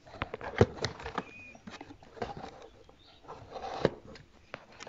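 Irregular light clicks and knocks as plastic model horses are handled and bumped against the walls and dividers of a toy horse trailer. The loudest knocks come about half a second in and again near four seconds.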